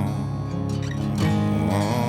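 Country-style song with strummed acoustic guitar, the last sung word fading out at the start.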